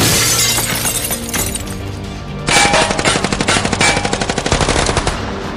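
Sound-effect crash of shattering glass, then from about halfway in a long burst of rapid automatic gunfire, over steady background music.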